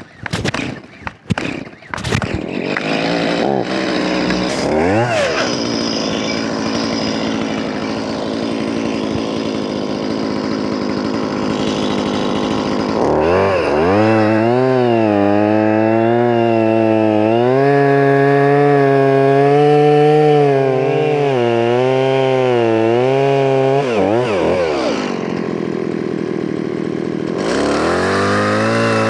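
Chainsaw running: a few sharp clacks near the start, then the engine runs at a low steady speed with a brief rev about five seconds in. About thirteen seconds in it revs high for around ten seconds with the pitch wavering, drops back to low speed, and revs up again near the end.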